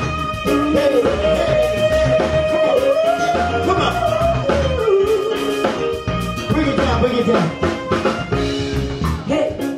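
Live soul band playing: a woman sings a long, bending vocal line over drum kit, electric guitars and keyboard.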